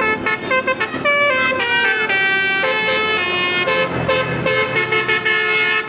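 Basuri telolet horn, a multi-tone electric bus horn, playing a quick melody of short notes that step up and down.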